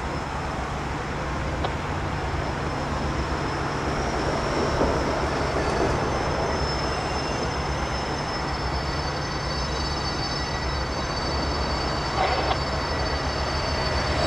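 A passenger train hauled by F-unit diesel locomotives running slowly on curved track, with a steady low engine drone and a rolling rumble that grows slowly louder as it approaches. From about six seconds in, a thin high squeal of wheels on the curve joins it.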